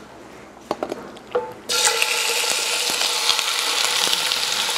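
Diced boneless chicken thighs going off a cutting board into a skillet of hot olive oil: a few light clicks, then a loud sizzle that starts suddenly about a third of the way in and keeps going steadily.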